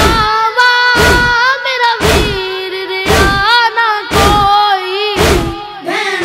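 A boy's solo voice chanting a noha, a Shia lament, in long, wavering melodic lines over a deep, heavy thump about once a second that keeps the beat.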